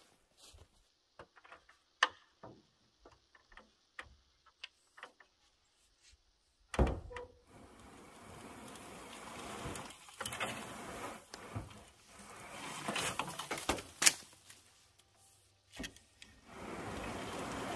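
A rake dragging thick moss and debris across a metal bus roof in long scraping strokes, each swelling and fading over a couple of seconds. Before that, scattered light clicks and knocks as a stepladder is climbed, then a sharp thump about seven seconds in.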